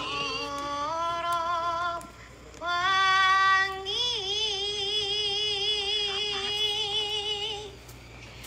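Wordless high-pitched singing, like a woman's voice, holding long notes with vibrato in three phrases: the first climbs in steps, and after two short breaks the last note is held for nearly four seconds before fading near the end.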